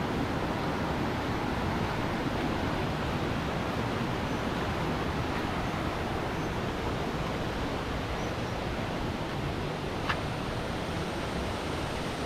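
Waterfall: a steady rush of falling water, with a single sharp click about ten seconds in.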